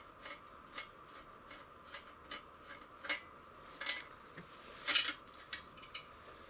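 Metal hand tools clinking and clicking against metal while bolts are worked loose on an ATV engine cover: a string of separate light clicks, roughly one every half second, with a sharper clink about five seconds in.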